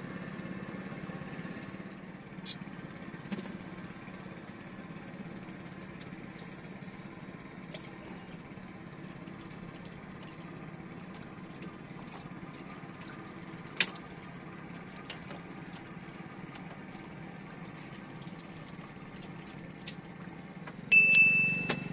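An engine running steadily in the background, a low even hum, with a few faint ticks. About a second before the end, a short loud burst with a high steady squeal.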